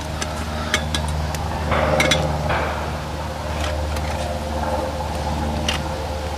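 Stainless steel camping pot and lid being handled over a camp stove: a few sharp metal clinks and taps and a short scrape about two seconds in, over a steady low hum.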